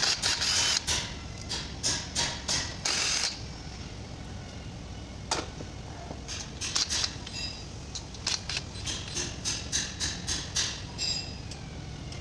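Hand ratchet and socket clicking in short runs while undoing the 10 mm bolts that hold an automatic transmission's oil strainer, with metal tools knocking now and then.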